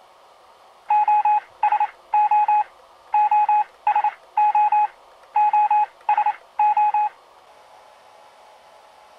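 Electronic beeps: nine tones in three groups, each group a longer beep, a short one, then another longer beep, with a faint steady hiss between them.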